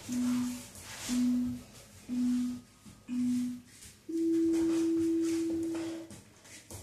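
Workout interval timer beeping a countdown: four short beeps about a second apart, then one longer, higher beep lasting about two seconds that marks the start of the next exercise interval.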